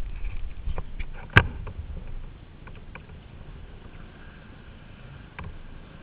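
Sea kayak being paddled on moving water: a low rumble of wind and water with a few short splashes and knocks, the sharpest about a second and a half in.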